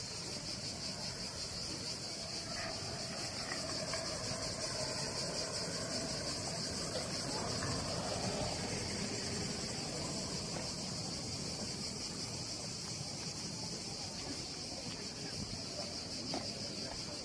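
Chorus of cicadas in the trees, a steady, high, finely pulsing buzz.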